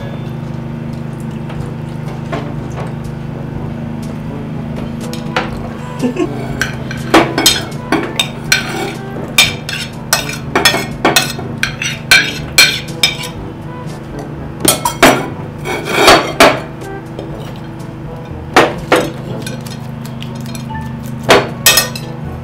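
Cutlery and dishes clinking and knocking on ceramic plates during a meal: short sharp clinks in irregular clusters that begin about five seconds in, over a steady low hum.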